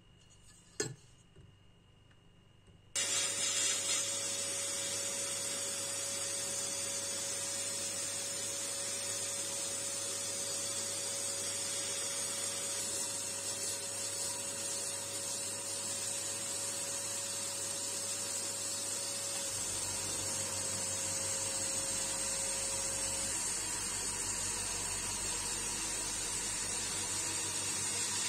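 Sandblasting gun in a blast cabinet, starting suddenly about three seconds in and hissing steadily as it blasts abrasive against the corroded metal frame of a Marksman dart pistol.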